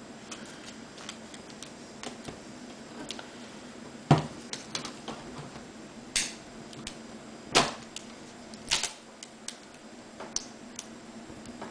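Scattered light clicks and taps of small plastic and metal parts being handled while a laptop's display assembly is taken apart. The sharpest knocks come about four, six, seven and a half and nine seconds in.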